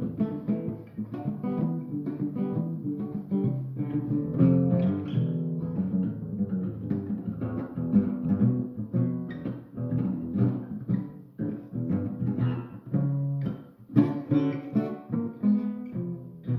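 Guitar being played: a steady run of plucked notes with a low bass line under it.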